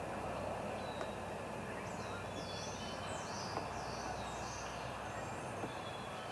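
Songbird singing: a quick run of four or five looping high notes about two seconds in, with thin short whistles around it, over a steady background hiss. A couple of faint taps near the middle and near the end.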